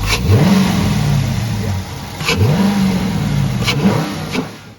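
Dodge Charger R/T's 5.7-litre Hemi V8 revved twice from idle, each rev climbing, holding for about a second and falling back, with the intake noise of a freshly fitted K&N cold air intake. The sound cuts off suddenly at the end.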